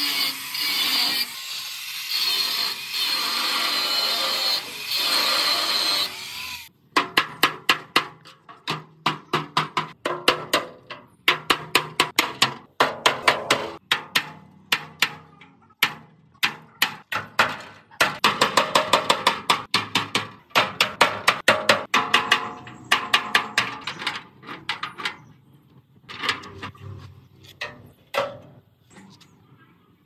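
A power tool runs steadily for about six and a half seconds and then stops. Then come rapid hammer blows on metal, about three or four a second, in runs with short pauses, each blow ringing briefly.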